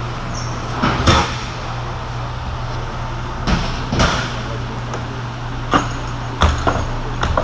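Steady low machinery hum with a series of separate knocks and clunks as tobacco bales are handled at a wooden bale press.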